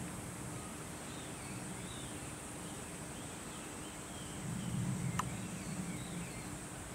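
Outdoor ambience: a steady high insect drone with faint bird chirps, and a low rumble that swells for about a second and a half from about four and a half seconds in, with a single sharp click in the middle of it.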